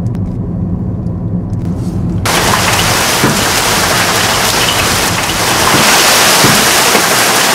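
A car's engine and road noise hum steadily for about two seconds, then give way abruptly to a hailstorm: a loud, dense hiss of hail and rain pelting down, with scattered small impacts.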